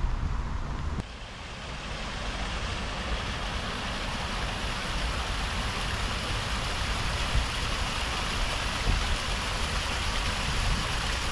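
Steady rush of flowing water, with a low wind rumble on the microphone.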